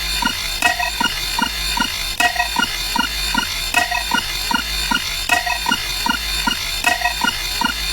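Looping rhythmic sound effect: short low thuds about four times a second, with short high beeps at a few pitches repeating over them.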